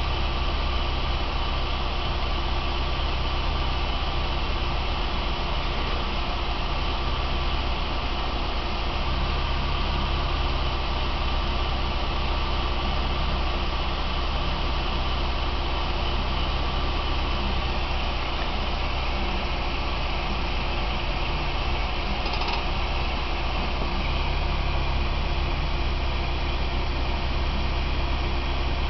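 Car engine idling steadily, heard from inside the cabin as a constant low hum.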